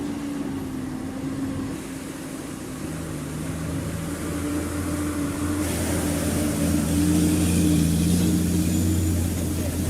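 A truck's engine running steadily as it drives through lake water, getting gradually louder.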